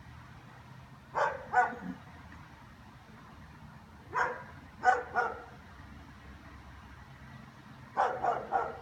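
German shepherd barking in three bursts of two or three barks each, roughly three to four seconds apart.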